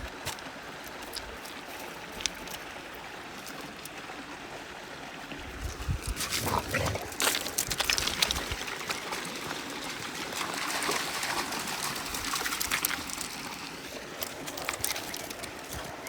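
Water trickling, turning louder and choppier with irregular splashing from about six seconds in.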